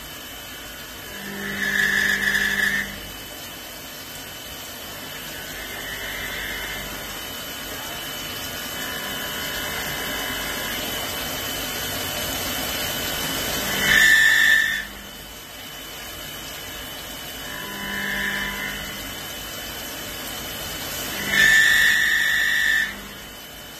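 Swiss-type CNC lathe cutting a workpiece under flood coolant. A steady hiss of coolant spray and cutting slowly grows louder, and a loud pitched whine rises over it three times, each lasting a second or two: near the start, about halfway through and near the end.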